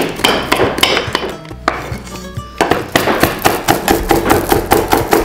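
Large kitchen knife chopping jalapeño peppers on a wooden cutting board: a few spaced strokes, a short pause, then rapid even chopping at about five strokes a second, over soft background music.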